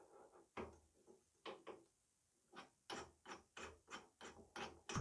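Faint metallic clicks from a Forstner bit being fitted into a drill press's chuck: a few scattered knocks as the bit goes in, then a regular run of clicks, about three a second, as the chuck is turned tight.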